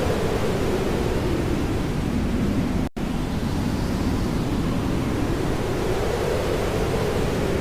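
Hair dryer running steadily, an even rushing noise with a slow rise and fall in its low hum; the sound cuts out for an instant about three seconds in.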